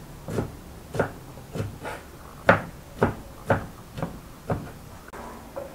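Kitchen knife chopping a bunch of fresh coriander on a wooden cutting board: steady knocks of the blade on the wood, about two a second, stopping about five seconds in.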